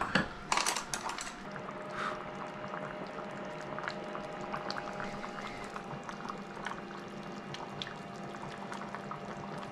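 Massaman curry simmering in an enamelled cast-iron Dutch oven: steady soft bubbling with many small pops over a low steady hum. A few sharper clicks come about half a second to a second in.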